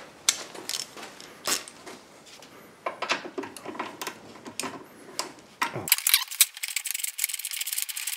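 Hand socket ratchet driving a 10 mm screw: scattered metal clicks and knocks of the tool being fitted, then from about six seconds in a fast, steady run of fine ratchet clicks.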